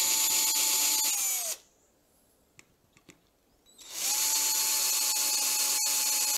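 Cordless drill with a 4.5 mm bit drilling holes through a sheet-metal template into the wood beneath: a steady motor whine with a high cutting hiss. It stops about a second and a half in, then starts again about four seconds in for the next hole.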